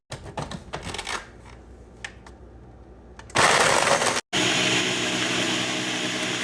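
A few clicks and clinks of a container and lid being handled, then about three seconds in a countertop blender starts up and runs steadily and loudly, blending a smoothie.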